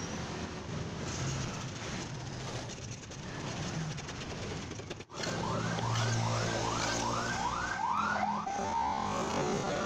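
Homemade half-round wooden hand plane shaving along a wooden strip, a steady rasping noise. About halfway through, a siren takes over and is the loudest sound, rising and falling about two to three times a second, then changing to a slower wail near the end.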